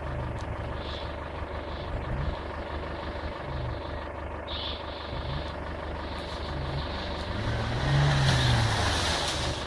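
Off-road 4x4's engine running steadily, then revving harder about eight seconds in as the vehicle works at an obstacle.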